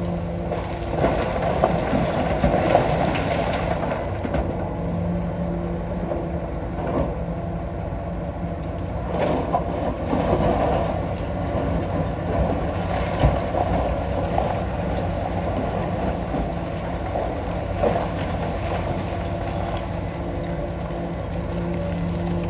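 Komatsu PC220-6 hydraulic excavator working rock: its diesel engine runs steadily, swelling and easing under load, with scattered clanks and knocks of the bucket against stone.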